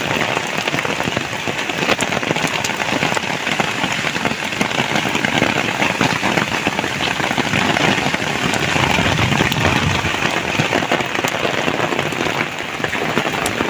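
Heavy rain falling steadily: a dense hiss with many single drops ticking through it.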